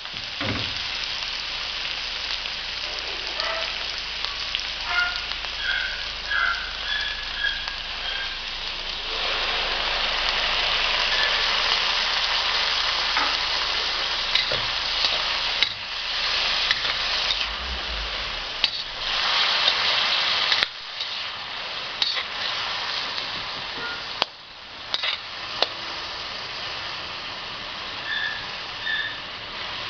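Vegetables and chicken sizzling in a stainless-steel wok, a steady frying hiss that grows louder about nine seconds in. In the second half a spatula scrapes and clicks against the wok during stirring.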